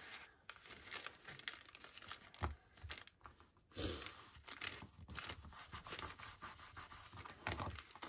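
Paper bag and paper strip being handled and pressed by hand: faint, irregular rustling and crinkling of paper.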